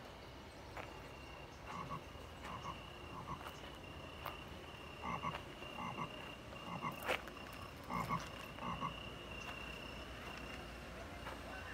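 A frog croaking in short two-part calls, repeated roughly every second, with a faint steady high-pitched tone behind it.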